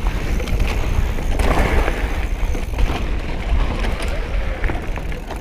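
Wind buffeting the microphone over the rumble of a hardtail electric mountain bike's 2.8-inch plus tyres rolling fast over a dirt trail, with a few short knocks as the bike rattles over bumps.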